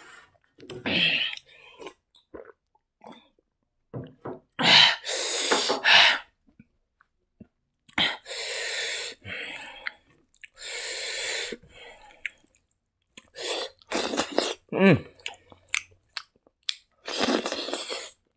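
Close-miked eating sounds: a man chewing handfuls of rice with wet mouth noises, broken by several loud breathy bursts about a second long, with quiet gaps between.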